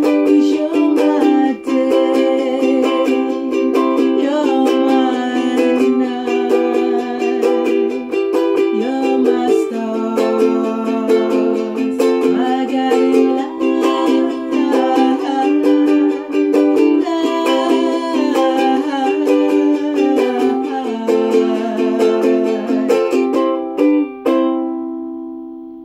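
Soprano ukulele strummed in a steady rhythm, chord after chord. Near the end a final chord is left to ring and die away.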